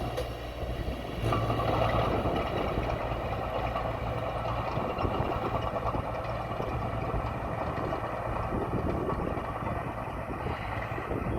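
Diesel engine of heavy earthmoving equipment running steadily. It gets louder for a moment about a second in, then settles back.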